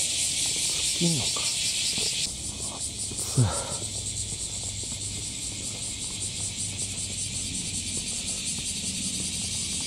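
A steady, high-pitched chorus of summer cicadas buzzing, a little weaker after about two seconds. A person's voice makes two short falling sounds, about a second in and about three and a half seconds in; the second is the loudest moment.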